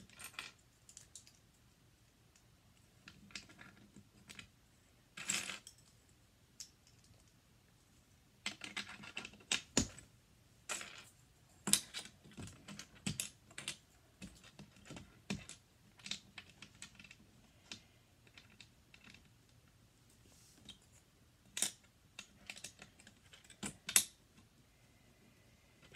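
Plastic LEGO bricks clicking and clattering as pieces are picked up and pressed together on a baseplate, in irregular small clicks with short quiet gaps.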